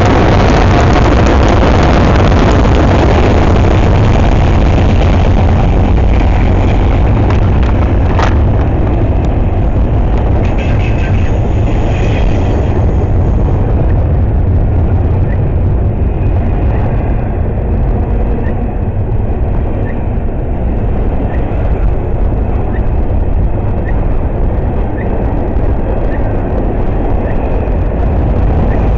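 Freight train passing close by: a loud, steady rumble and rattle of cars rolling along the track, with one sharp click about eight seconds in and faint high ticks about once a second later on.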